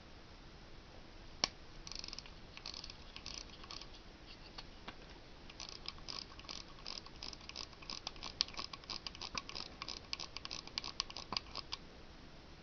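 Elgin size-18 pocket watch being stem-wound: one sharp click about a second in, then the winding ratchet clicks in quick, uneven runs for about ten seconds as the crown is turned.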